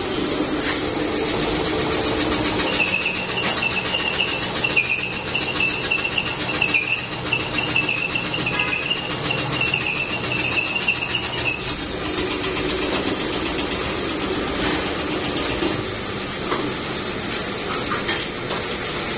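Plastic injection moulding machine running steadily, with a high wavering whine that sets in about three seconds in and stops abruptly near the twelve-second mark.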